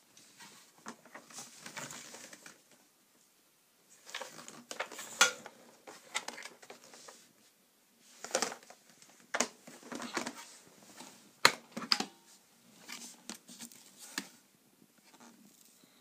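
Hard plastic clicks, knocks and rustling as a bagless cylinder vacuum cleaner is picked up and handled and its clear dust container is unclipped, with the motor off. The sharpest clacks come about five seconds in and again near twelve seconds.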